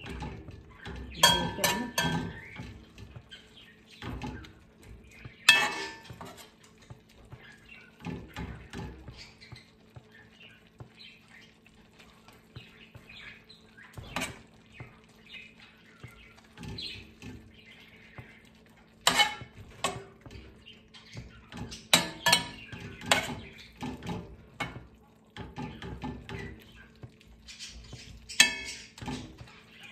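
Metal spoon stirring beef and onions in a stainless-steel skillet, scraping and clinking against the pan, with sharp clanks every few seconds over a faint steady hum.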